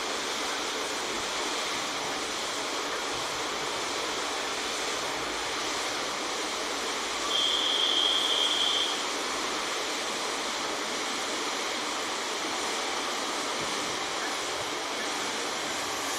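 Electric multiple unit running over snow-covered track: a steady rushing noise, with a high thin steady tone lasting about a second and a half near the middle.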